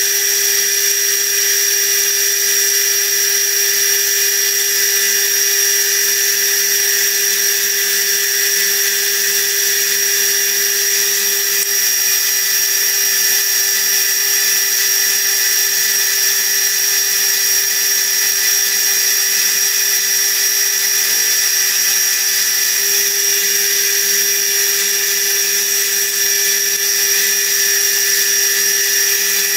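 Milling machine running with a steady whine as a 2 mm end mill cuts a screwdriver slot in the head of a small screw.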